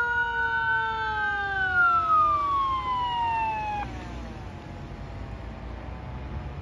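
Fire tanker truck's siren sliding down in pitch over about four seconds; the louder tones cut off abruptly a little past halfway while a fainter tone keeps falling. A steady low rumble from the truck runs underneath.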